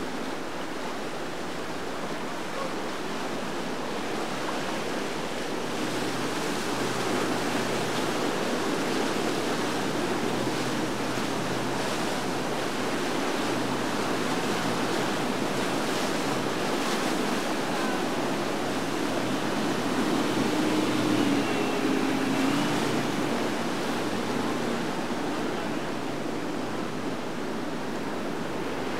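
Steady rush of churning water, the canal's turbulent current and boat wakes washing, with a faint low hum underneath at times.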